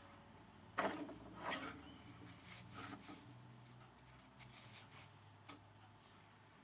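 Soft handling noises of a model rocket body tube, nose cone and elastic shock cord being worked by hand, as the shock cord is pushed into the tube: a few rubbing, scraping knocks, the loudest about a second in.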